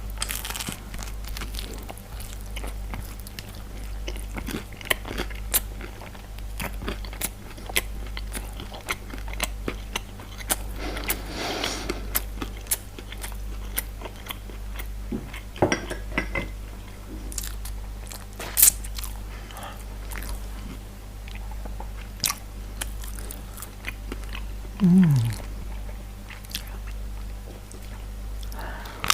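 Close-miked eating of pizza and fries: crunchy bites and chewing with sharp mouth clicks. About 25 seconds in comes a short burp that falls in pitch, the loudest sound of the stretch.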